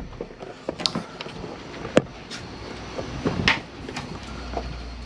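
Handling noise from the boat's cockpit glazing and fittings: scattered light clicks and knocks, a sharp knock about two seconds in and a brief scuffing sound about a second and a half later.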